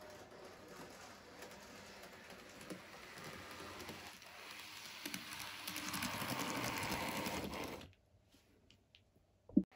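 Minitrix N-scale model of the DB class 610 tilting railcar running on the layout: a small motor whirring with rapid clicking of wheels on the rails, growing louder as it comes near and stopping abruptly about eight seconds in. A single short thump near the end.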